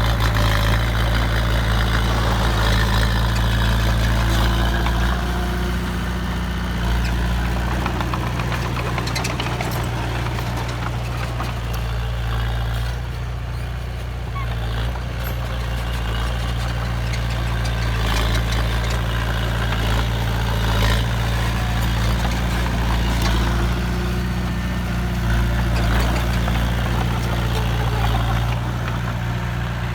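Heavy diesel engine running steadily at a low, even pitch, with scattered light clicks above it.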